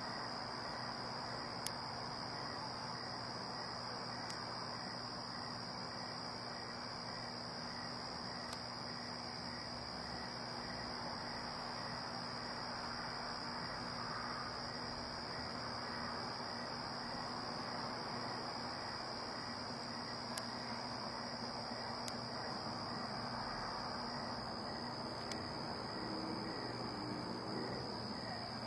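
Night chorus of crickets: a steady, unbroken high-pitched trill, over a faint background hiss and hum.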